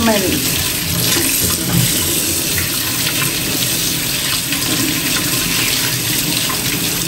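Kitchen mixer tap running steadily into a stainless steel sink, the stream splashing over vegetables being rinsed by hand.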